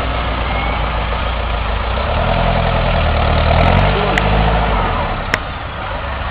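Toyota Land Cruiser off-road 4x4 engine idling, revving up briefly about two seconds in and settling back to idle. A single sharp click near the end.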